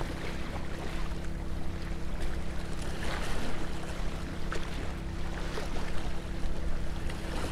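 A steady low motor hum, like a boat engine or generator, runs under wind and waves washing at the water's edge.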